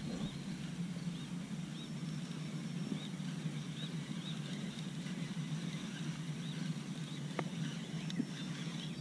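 A bird calling in short, high, repeated notes, about one to two a second, over a steady low hum. Two sharp clicks come near the end.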